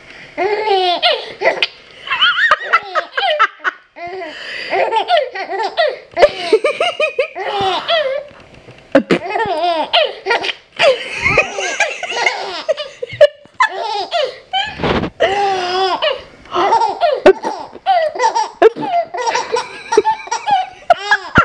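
A 14-week-old baby laughing in a long run of short belly-laugh bursts, each gliding up and down in pitch, with brief pauses between.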